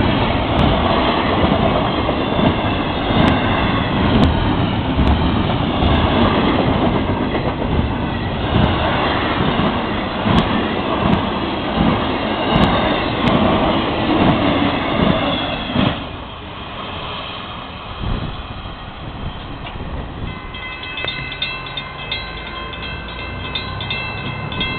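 Long Florida East Coast Railway intermodal freight train rolling past at a grade crossing, steel wheels clattering over the rail joints. About sixteen seconds in the end of the train passes and the sound drops away; near the end a steady ringing tone from the crossing's warning bell remains.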